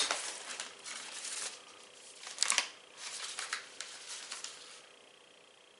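Paper documents rustling as they are handled and leafed through, in several short bursts that die away near the end.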